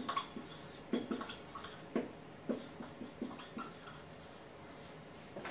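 Marker pen writing on a whiteboard: a run of short, scratchy strokes as a word is written, stopping about three and a half seconds in.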